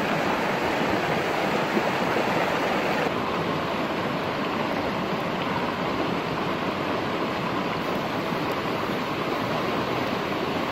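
Steady rush of a fast-flowing stream, dropping a little in level about three seconds in.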